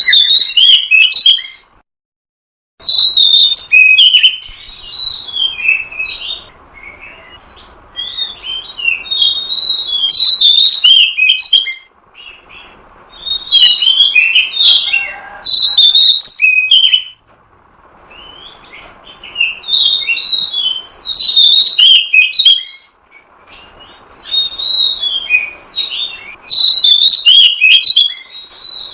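Oriental magpie-robin (kacer) song, loud whistled and chattering phrases in bursts of one to three seconds with short pauses between them, over a faint steady hiss. It is a lure recording used to draw in wild magpie-robins.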